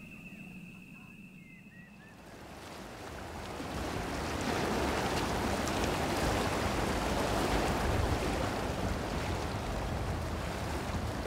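River water rushing and splashing past the bow of a moving wooden canoe, with wind on the microphone. It swells up over the first few seconds and then runs steady.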